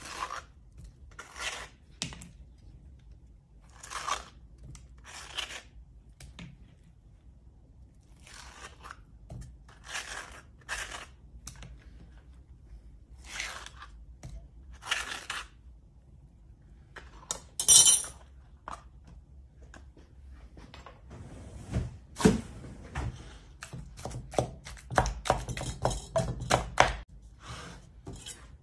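A metal spoon scraping soft avocado flesh from its skin, with chunks dropping into a mortar bowl, in separate strokes every second or two. The handling becomes a denser run of knocks and clicks near the end.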